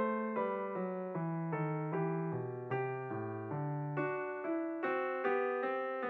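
Background piano music: a gentle melody of evenly paced single notes, about two a second, over changing lower notes.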